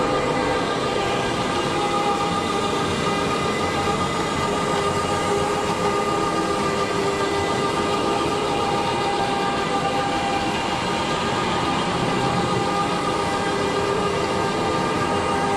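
Rotary carpet-extraction wand working across carpet under vacuum suction: a steady loud hiss with a constant whine of several high tones over it.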